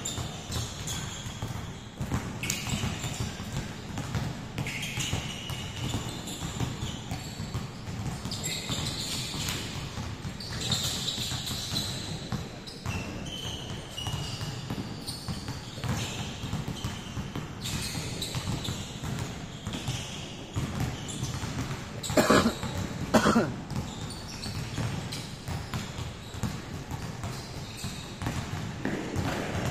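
Many basketballs dribbled at once on a hardwood gym floor: a dense, continuous patter of bounces echoing in the large hall, with sneakers squeaking now and then. Two louder brief sounds stand out about 22 seconds in.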